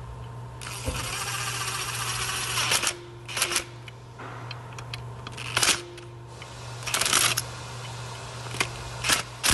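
Ratchet wrench clicking as the ignition coil's mounting bolts are snugged down: one dense run of about two seconds near the start, then several short bursts of clicks.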